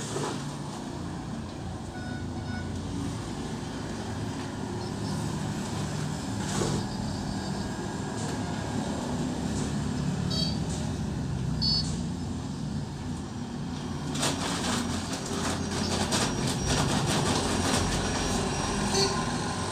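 Steady rumble of road traffic passing the open shop front. From about two-thirds of the way in comes a run of scraping and knocking as a plastic bucket scoops loose sand and cement off a concrete floor.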